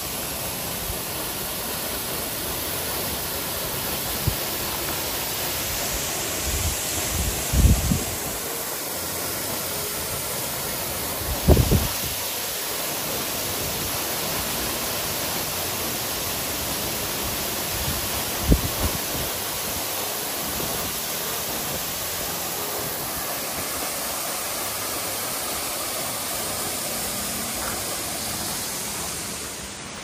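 Yoro Falls, a tall waterfall plunging into its pool, making a steady, even rush of falling water. Three brief low thumps stand out over it in the first two-thirds.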